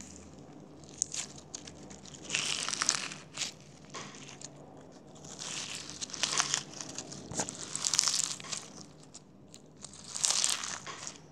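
Crunchy slime being squeezed and worked by hand, crackling and popping in three irregular bursts of many small clicks.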